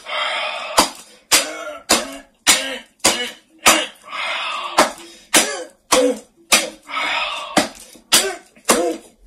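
Sharp smacks about twice a second, objects struck by hand in a mock fight, mixed with a man's hoarse, throaty vocal noises and short grunts between the hits.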